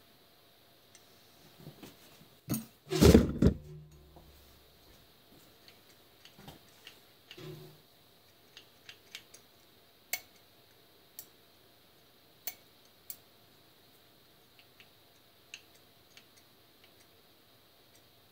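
Metal tool parts and a ratchet wrench clinking and clicking as an air impact wrench is handled on a workbench. A louder clatter about three seconds in, another small one about halfway, then scattered light ticks.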